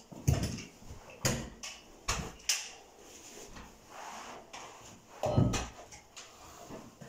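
Carpet fitters' hand tools knocking on a carpeted floor as carpet is tucked and fixed at the wall edges: a handful of dull, irregular knocks, the loudest just after the start and about five seconds in.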